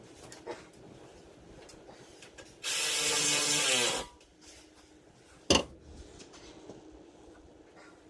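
A power ratchet runs in one burst of about a second and a half, its pitch falling as it winds down. A sharp click follows a couple of seconds later, with small tool rattles around it.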